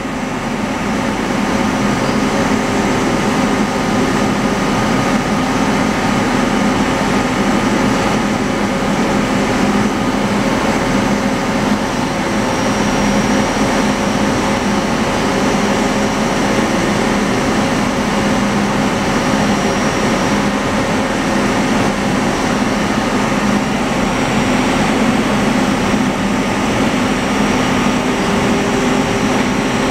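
Gildemeister Twin 42 CNC lathe cutting under flood coolant: a steady wash of spraying coolant over the machine's low running hum.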